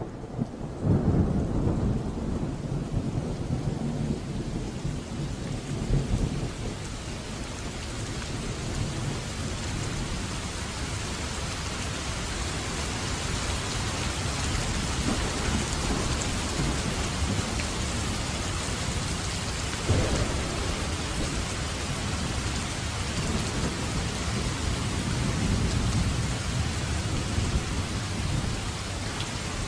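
Steady rain with thunder from a thunderstorm. Deep rolling thunder rumbles through the first several seconds, with sharper claps about one and six seconds in, another clap about twenty seconds in, and the rain hiss steady throughout.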